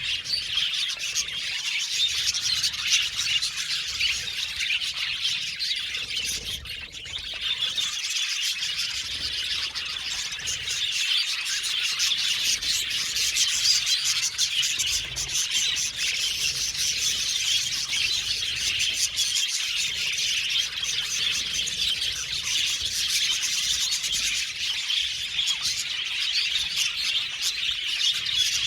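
A colony of budgerigars (budgies) chirping and chattering continuously, many birds calling at once, with a brief lull about seven seconds in.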